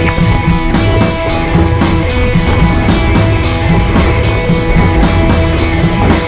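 Background rock music with a driving drum beat and guitar.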